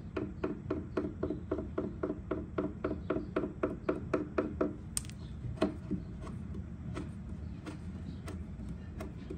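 A Mohawk Blendal colour stick tapping rapidly against the wood of a dresser's side, an even run of about five taps a second that stops about four and a half seconds in; a few lighter, scattered taps follow.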